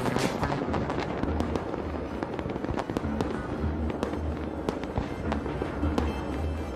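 Fireworks going off in quick succession, many sharp cracks and pops, over a music soundtrack with a steady bass line.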